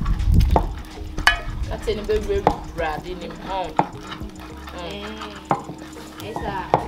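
Cooking clatter: a ladle stirring soup in an aluminium pot while tomatoes are ground by hand in a clay bowl, with a sharp knock every second or so.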